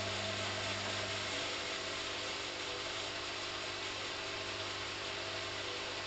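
Hoover CA232 front-loading washing machine running through its final rinse: the drum motor gives a steady hum over a constant hiss, with no change through the stretch.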